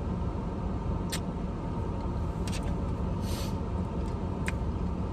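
Steady low rumble inside a car, with a few short sharp clicks and a brief rustle about three seconds in.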